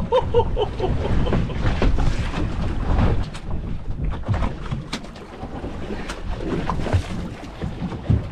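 Wind buffeting the microphone, with scattered knocks and thuds on the boat deck as a large, freshly landed fish is handled.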